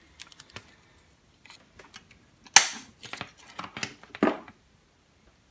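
Handling noise at a workbench: clicks and knocks of tools and an LED light's circuit board being set down and moved on a wooden desk. There is one sharp clack about two and a half seconds in, then a cluster of lighter knocks and a scrape.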